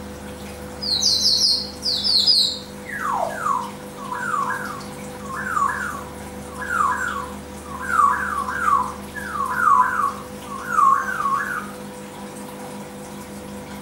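Quick falling chirps, first a few high ones, then groups of two or three lower ones about once a second, over the steady hum of aquarium equipment.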